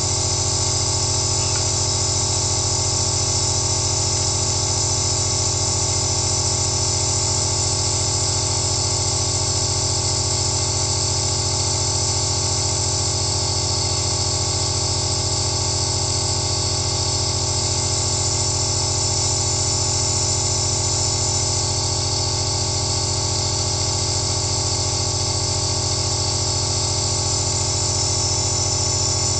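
Compressor nebulizer running steadily: an unchanging low motor hum with a bright hiss of air and mist through the mask.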